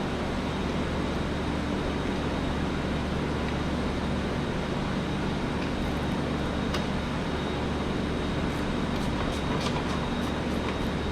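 A steady machine drone, unchanging throughout, with a few light, sharp clicks about two-thirds of the way in and several more near the end.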